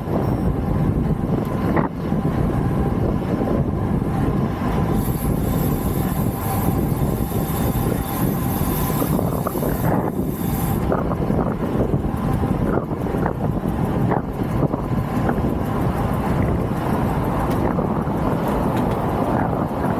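Wind rushing over the camera microphone and steady road noise from a vehicle riding along an expressway at about 45 to 55 km/h. A few faint steady tones sit under the rumble.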